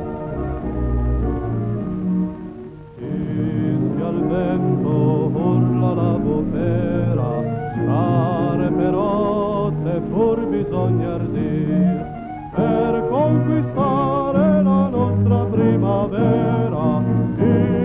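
Soundtrack music: orchestral chords, then from about three seconds in, singing voices with a wide vibrato over the accompaniment.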